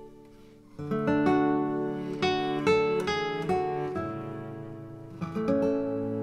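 Background music of plucked and strummed acoustic guitar, quieter at first and coming in fuller about a second in.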